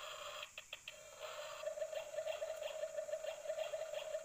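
Battery-powered toy kitchen playing an electronic cooking sound effect: a short hiss, then from about a second in a steady, slightly warbling electronic tone.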